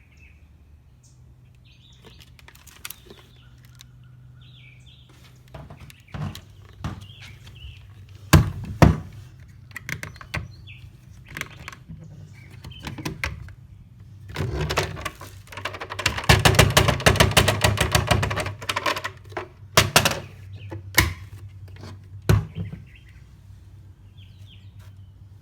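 A series of sharp knocks and clatters of something being handled, with a dense rapid rattle lasting about three seconds past the middle. Birds chirp faintly in the first few seconds.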